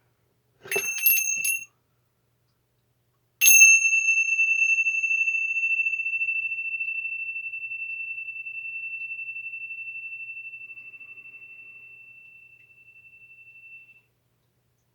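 A small metal bell-like chime is struck. First comes a brief jangly ringing about a second in, then a single clear strike about three and a half seconds in. That strike rings one high tone that fades slowly over about ten seconds, wavering slightly as it dies away.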